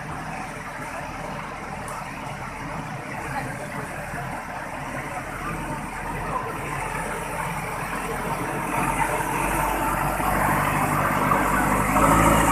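JCB backhoe loader's diesel engine running as it wades through a fast-flowing flooded river, mixed with the rush of the water. It grows steadily louder as the machine comes close, loudest near the end.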